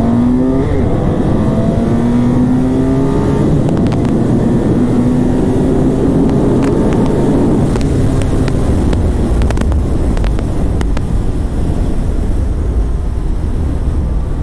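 BMW F800ST parallel-twin engine under hard acceleration, its pitch rising in several pulls through the gears, with wind rushing over the microphone that takes over as speed builds.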